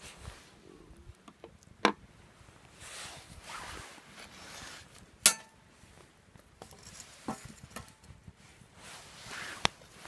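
Four sharp metal clinks, the loudest about five seconds in with a short ring, amid soft rustling.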